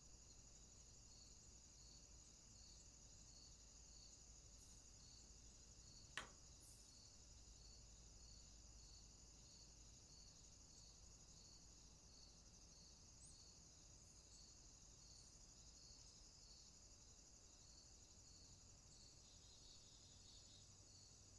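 Faint insect chorus at the waterside: a steady high trill with a chirp repeating about twice a second, and a single sharp click about six seconds in.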